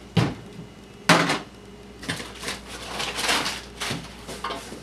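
A plastic spray bottle set down on a table with a knock, then a louder knock about a second in, followed by rustling and crinkling of cardboard and paper packing as hands dig through a shipping box.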